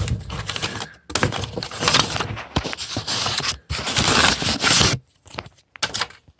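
Close handling noise: rough scraping and rustling, as of paper or a label being handled, with light clicks through it, ending in a few separate clicks.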